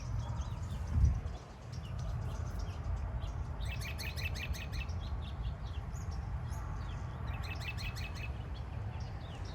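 Wind buffeting the microphone with a steady low rumble, and a thump about a second in. A bird calls twice in quick runs of rapid repeated chirps.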